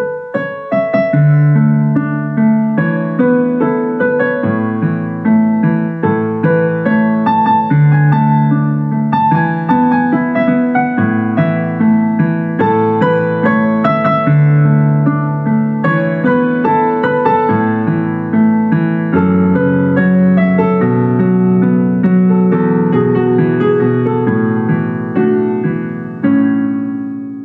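Background piano music: a melody over a repeating pattern of low notes, ending on a held chord that fades out near the end.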